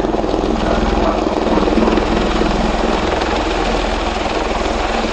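V-22 Osprey tiltrotor hovering low in helicopter mode: its two big proprotors give a loud, steady, rapid beat of blade slap over a deep rumble.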